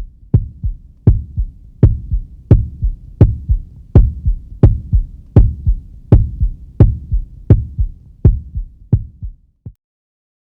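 Low thumping pulse like a heartbeat, a strong beat about every 0.7 seconds with weaker beats between, each beat with a sharp click on top; it stops near the end.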